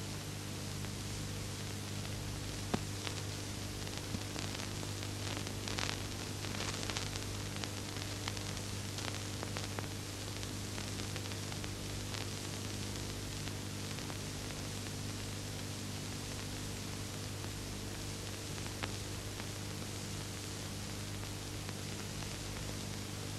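Steady hiss and low hum of an old film soundtrack, with a few faint clicks and crackles scattered through it.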